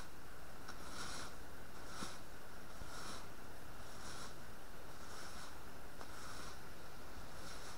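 A rake scraping through the dirt and leaf litter of a forest floor, one stroke about every second, over a steady low rumble.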